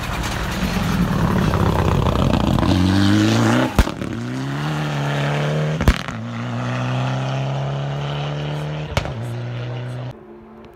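Mitsubishi Lancer Evolution X rally car passing at speed and accelerating away, its turbocharged four-cylinder engine rising in pitch through the gears. Three sharp pops come as it shifts up. The sound drops off suddenly near the end.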